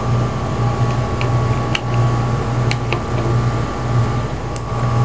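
Steady low mechanical hum, with a few faint, sharp clicks of a screwdriver working at the terminals and cord clamp inside a power tool's plastic handle.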